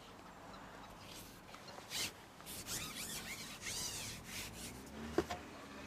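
Daiwa carbon match-fishing pole being shipped out, a run of rubbing, rasping strokes as the sections slide through the hands and over the rest. A sharp click about five seconds in, and a low steady hum sets in near the end.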